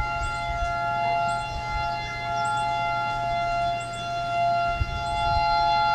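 Hawaii tsunami warning siren sounding a steady, unwavering tone during its monthly test, a fixed chord of two close pitches that never rises or falls.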